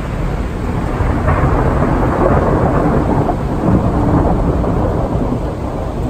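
Thunder rolling after a nearby lightning strike, with the hiss of heavy rain. The rumble builds about a second in, holds, and eases a little near the end.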